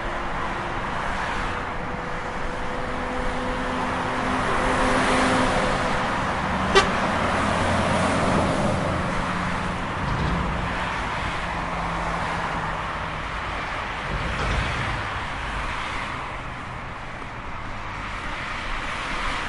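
Road traffic: cars and a motorbike driving past on a city street, the noise of passing vehicles swelling about four to nine seconds in. There is one sharp click about seven seconds in.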